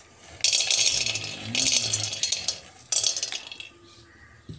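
Raw peanuts tipped into a hot, dry metal kadai, rattling and skittering against the pan in three bursts.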